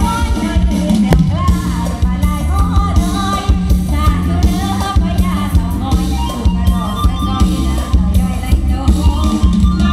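Live Isan (northeastern Thai) band music: a singer over a steady drum-kit beat and heavy bass.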